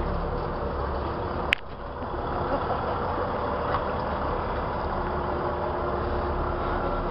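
An NZLAV eight-wheeled armoured vehicle's diesel engine runs steadily as the vehicle drives past close by. There is a single sharp click about a second and a half in.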